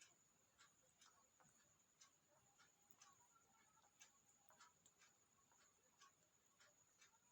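Near silence with faint, irregular clicks, about two a second, over a steady faint high whine: a parrot's beak nibbling and cracking food.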